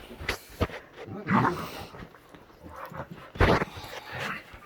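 A dog making several short, sharp sounds, the loudest about three and a half seconds in.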